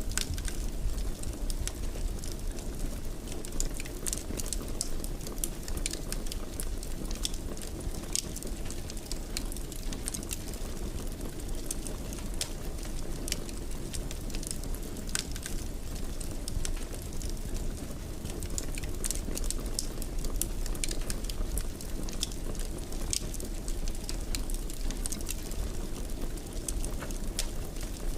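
Fire crackling in a fireplace: irregular sharp pops and snaps over a steady low rumble.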